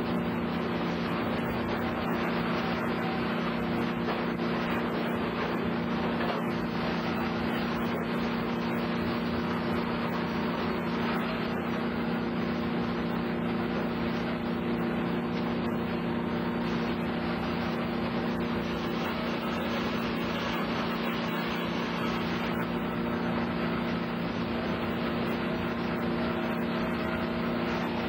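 Sawmill machinery running steadily: electric motors and a chain conveyor giving a constant hum over a busy mechanical noise, with no change or break.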